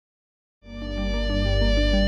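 Background music fading in about half a second in: a steady low bass note held under a run of changing notes.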